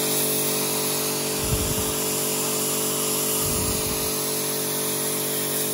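Karcher K4 electric pressure washer running under load: its motor and pump give a steady hum beneath the loud hiss of the water jet spraying from the lance.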